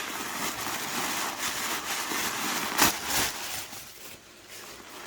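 Paper stuffing being pulled out of a leather handbag, crinkling and rustling throughout, with one sharper crackle a little before the middle.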